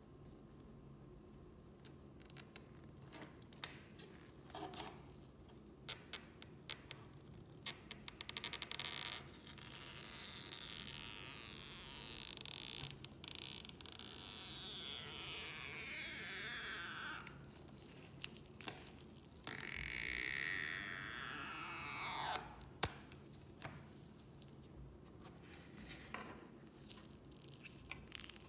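Stretch-release adhesive strips being pulled out from under an iPhone 7 Plus battery. There are two long squeaks, each falling steadily in pitch as a strip stretches and gives, the first about ten seconds in and the second near the twenty-second mark. Small clicks and taps of handling come before them.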